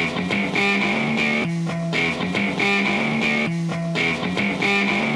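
Instrumental background music led by guitar, with a repeating rhythmic pattern.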